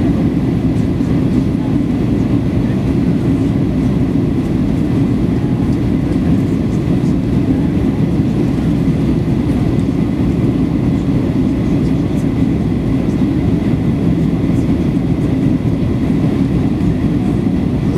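Steady cabin noise inside a Boeing 737-800 in flight: the CFM56 engines and the rush of air past the fuselage, a deep, even rumble with no change in level.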